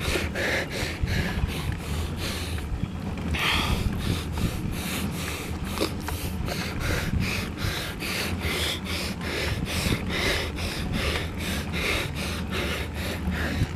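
A cyclist's hard, quick breathing while climbing, about three breath sounds a second with a short pause about three seconds in, over a steady low rumble of wind on the microphone and the road.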